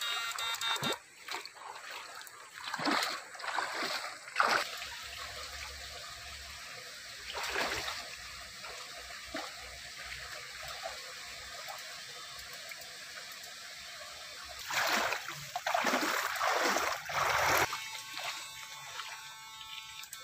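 Shallow stream water splashing as it is waded through and stirred by electrofishing poles, in bursts over the first few seconds and again about fifteen seconds in, with a steady trickle of flowing water between.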